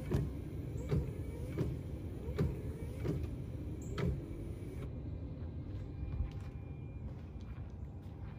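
Nissan Titan's V8 engine idling with a steady low rumble. Footsteps on paving about every 0.7 s over the first four seconds.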